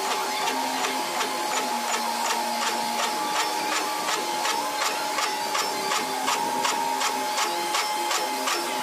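Milling machine fly-cutting the teeth of a worm wheel: the single-point cutter strikes the metal blank once per spindle turn, giving a regular ticking about two to three times a second over a steady machine whine.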